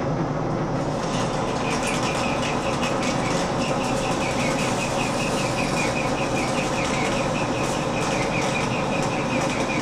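Monarch engine lathe running under a heavy roughing cut on steel stock on power feed: a steady motor and gearbox hum. From about a second in, a rapid run of high ticks from the tool cutting the steel comes in over it.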